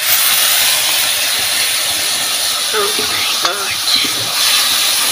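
Chicken frying in a hot iron wok as spice paste is poured in: a loud sizzle that starts suddenly and keeps on while a ladle stirs the meat.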